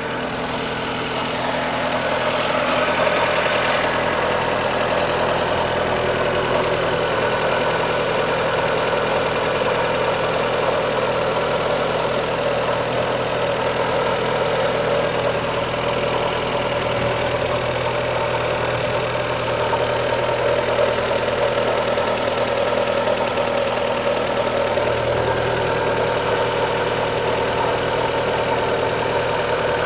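Fiat Stilo 1.6 16v four-cylinder petrol engine running steadily at idle. It makes a strange noise that the owner finds abnormal, its cause unknown.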